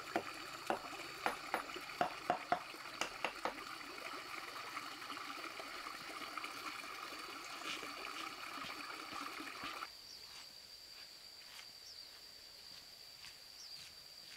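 Small forest stream trickling steadily, with a quick series of about ten sharp knocks in the first few seconds. The water sound cuts off about ten seconds in, leaving a steady high insect tone.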